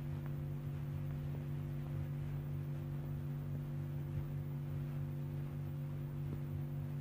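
Steady electrical hum, a low buzzing tone with its overtones, over faint hiss and rumble.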